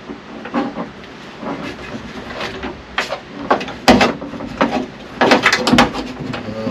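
Irregular knocks, clicks and rattles of hand work as a side mirror and its nuts are fitted to a pickup door, the sharpest knock about four seconds in and a quick run of clicks shortly after.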